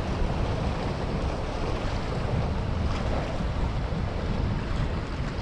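Wind buffeting the microphone over waves washing and splashing against the jetty's boulders, a steady rumbling rush.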